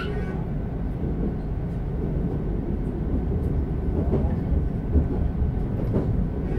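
Running noise of a moving passenger train heard from inside the carriage: a steady low rumble of wheels on the track, growing a little louder about four seconds in.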